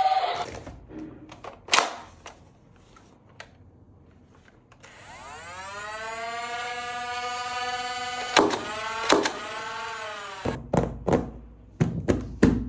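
Electronic toy sound effect: a synthetic tone that slides up, holds for a few seconds and bends back down, with sharp plastic clicks of the toy being handled and a run of clicks and thuds near the end.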